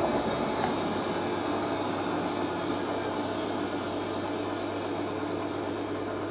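Hoover A3060 Electronic 1100 washing machine's drum and motor running down after the final spin, a steady whirring hum that slowly fades.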